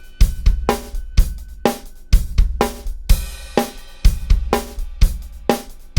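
Background music: a drum kit playing a steady beat of kick, snare and cymbal hits, about two hits a second.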